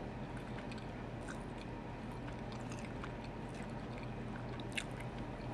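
Faint chewing of a bite of crispy breaded chicken tender with the mouth closed: a few soft clicks, one a little sharper near the end, over a steady low room hum.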